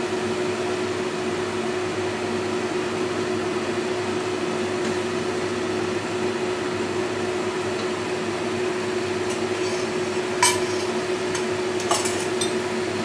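Wooden spatula stirring laksa paste in a nonstick pot, with a few sharp knocks against the pot near the end. A steady hum runs underneath.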